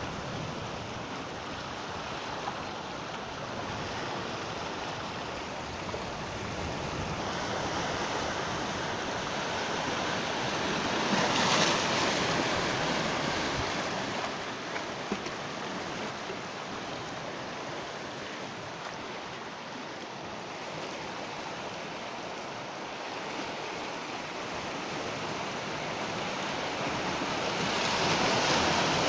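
Sea waves breaking and washing on the shore, a steady rush that swells with a louder breaker about a third of the way in and another near the end.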